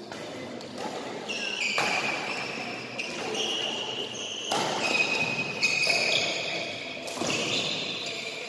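Badminton rally in a reverberant sports hall: racket strikes on the shuttlecock about every second and a half, with sports shoes squeaking high on the court floor between hits.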